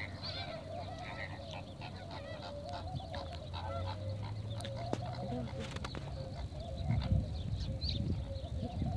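A flock of waterbirds calling: a continuous chorus of overlapping goose-like honks and chatter, with a low rumble underneath.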